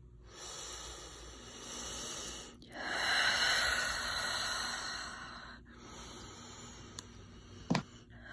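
A person breathing very close to the microphone: three long, slow breaths, each a breathy rush, with a brief sharp sound near the end.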